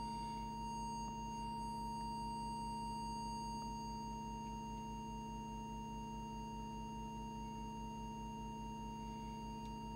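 A steady test tone of about 1 kHz, held without a break, over a low mains hum: the audio tone used for setting a CB radio's FM transmit deviation.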